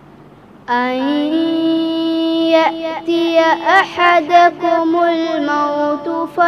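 A boy's voice chanting Quran recitation (qirat) in melodic tajweed style: after a short pause he comes in about a second in with one long drawn-out held note, ornamented with quick wavering turns in the middle.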